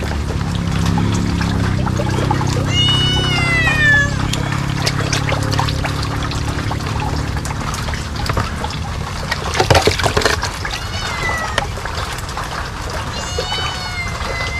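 An animal calling three times, each call drawn out and falling in pitch, a few seconds apart; the middle one is fainter. A low steady hum runs under the first half, and a short noisy clatter comes about two-thirds of the way in.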